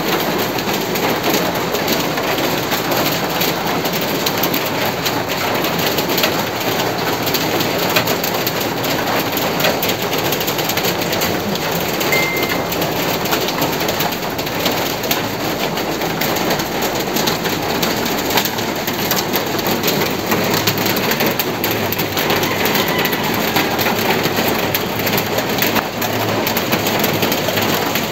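Heavy rain falling steadily, pattering on leaves and hard surfaces, with a brief high chirp about twelve seconds in.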